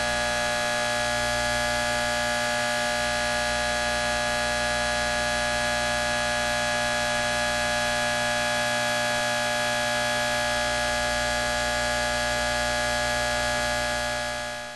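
Electrical hum and buzz: a steady drone made of many steady tones over a faint hiss, unchanging, fading out near the end.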